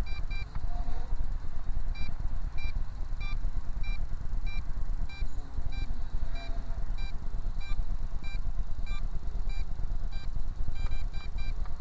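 MJX Bugs 3 quadcopter in flight, its propellers humming under a steady low rumble, with short high electronic beeps repeating roughly twice a second.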